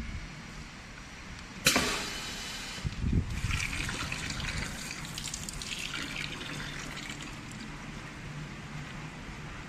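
Pneumatic semi-automatic pouch filling machine: a sharp click with a hiss of air about two seconds in, then clear liquid trickling and a plastic spouted pouch crinkling as the filled pouch is handled.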